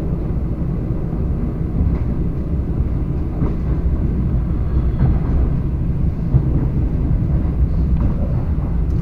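ED4M electric train running along the track: a steady low rumble of wheels on rails, with a few faint sharp clicks scattered through it.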